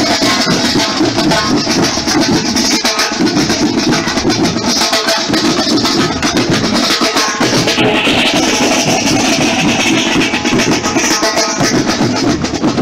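Marching band drum section playing marching snare drums with sticks, a steady, dense drum rhythm that runs on without a break.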